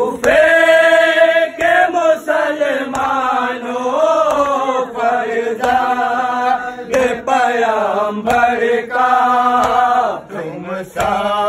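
Men's voices chanting an Urdu nauha lament in a slow, drawn-out melodic line, held without a break. Sharp slaps of hands beating on chests (matam) land every second or two.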